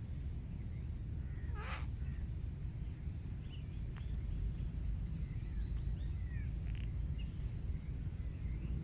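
A cockatoo gives one harsh screech about two seconds in, with short high chirps from other birds scattered through and a steady low rumble underneath.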